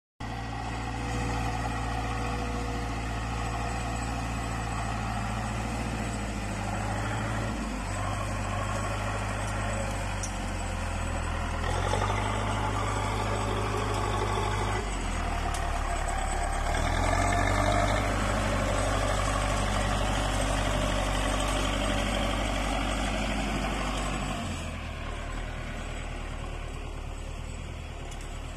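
Zetor 6245 tractor's four-cylinder diesel running under load as it drives a trailed SIP Tornado 40 harvester, with the harvester's working parts adding a steady rushing clatter. The engine note shifts down and back up a few times and eases off about three quarters of the way through.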